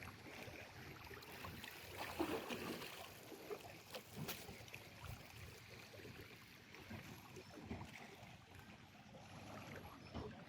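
Faint outdoor background noise with scattered soft knocks and rustles.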